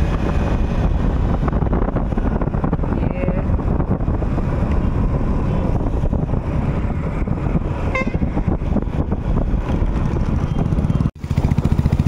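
Scooter on the move: steady engine and road noise with wind rumbling on the microphone. The sound drops out for a moment near the end.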